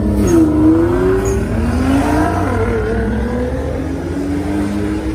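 Car engines revving and accelerating, their pitch climbing and falling several times over a steady low rumble.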